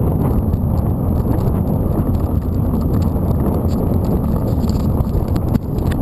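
Mountain bike riding along a dirt road: a steady low rumble of wind on the camera microphone and tyres rolling over the dirt, with small clicks and rattles from the bike.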